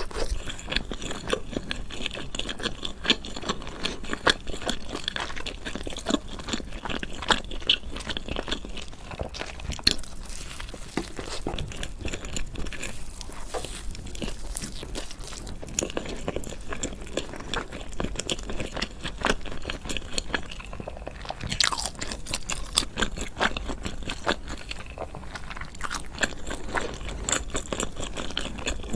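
Close-miked eating sounds: a person biting and chewing food, with many small irregular crunches and mouth clicks.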